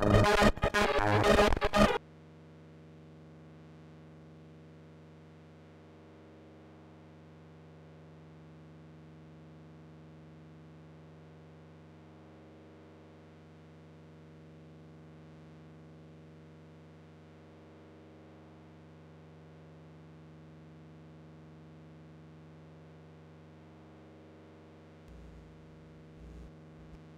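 Eurorack modular synthesizer, a Befaco Rampage run through delay, bit-crushing, saturation and granular processing, playing a dense, distorted, glitchy patch that cuts off abruptly about two seconds in. It leaves a faint, low, steady hum, with a few soft clicks near the end as a patch cable is handled.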